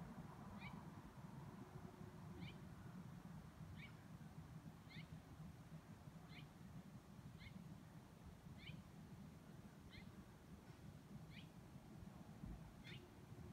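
A bird calling faintly: a short high chirp repeated about once a second, over a low background hum.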